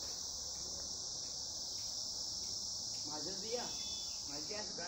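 Steady, high-pitched chorus of insects, such as crickets, going on without a break.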